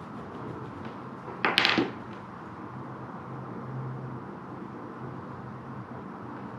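A single quick, scratchy stroke of drawing across paper on a wooden board about a second and a half in, over faint steady room noise.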